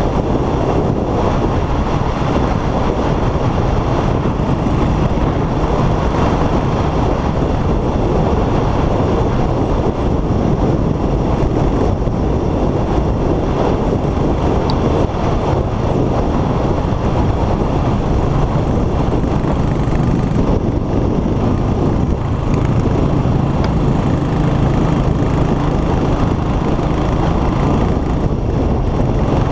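Royal Enfield single-cylinder motorcycle engine running steadily at cruising speed through its stock BS3 exhaust, with wind rush over the microphone.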